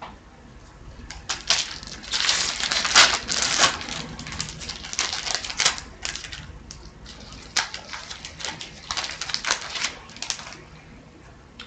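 Hockey card pack being opened: the wrapper crinkles and tears, and the cards rustle as they are pulled out and handled. The crackling is irregular, with sharp clicks, starting about a second in and stopping shortly before the end.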